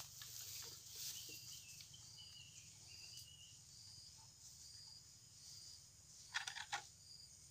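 Faint outdoor ambience: an insect chirping in short high pulses, about two a second, with a short wavering bird call a couple of seconds in and a brief rattle of clicks near the end.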